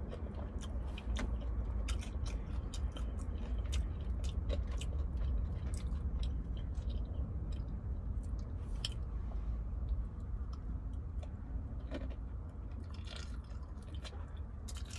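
Close-up chewing and biting of food, with many short wet mouth clicks, over a steady low hum.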